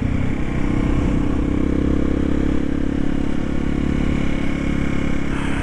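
1991 Yamaha XT350's single-cylinder four-stroke engine running at a steady pace while the motorcycle is ridden, its pitch holding even.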